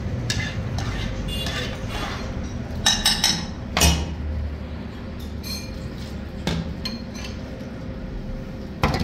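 Metal ladle clinking against the broth pot and bowls as broth is ladled out, with a cluster of sharp clinks about three to four seconds in and others later, over a steady low hum.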